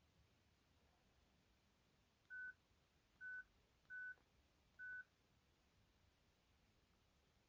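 Nphone N88 mobile phone giving four short, single-pitch keypad beeps as its buttons are pressed to move through the menus.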